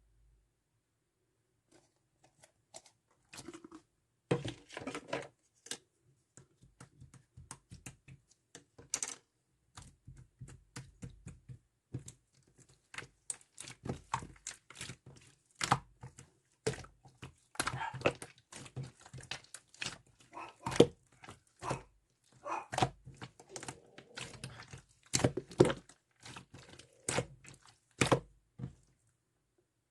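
Irregular clicks, knocks and rustling, as of small objects being handled, starting about three seconds in and stopping just before the end.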